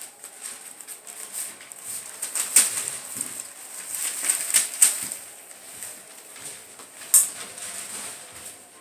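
Newspaper rustling and crackling under a puppy scrambling about on it and pushing a plush toy across it, with a few sharper crackles about two and a half, four and a half and seven seconds in.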